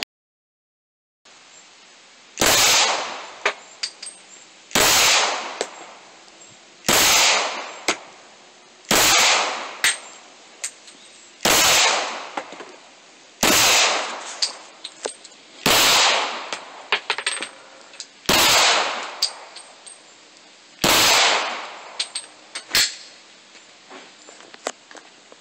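A Glock 22 Gen 3 pistol in .40 S&W is fired nine times in slow single shots, about two to two and a half seconds apart. Each shot has a short echoing tail, and lighter clicks and clinks fall between the shots.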